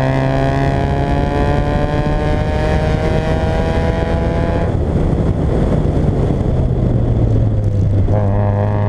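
Fiat Coupé 1.8 16v four-cylinder engine pulling under throttle, its note rising steadily for about four and a half seconds. It then drops out for about three seconds as the throttle is lifted, leaving road and wind noise, and comes back at a lower, steady pitch near the end.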